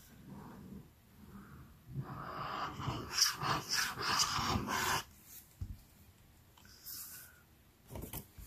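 Squeezed Tombow liquid glue bottle with a needle-nose tip, sputtering and hissing as air and glue spurt through the tip while a bead of glue is laid along a card panel. The noise is loudest from about two to five seconds in, and a few light clicks come near the end.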